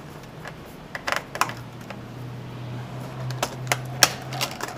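Scattered sharp clicks and taps of a tool and plastic parts while screws are taken out of a Dell Inspiron 1525 laptop's keyboard area. A low steady hum runs under it from about a second and a half in until near the end.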